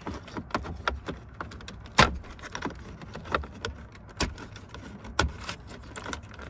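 Plastic wiring-harness connectors being unplugged by hand behind a truck's center-console switch panel: a run of sharp clicks and rattles, the loudest about two, four and five seconds in.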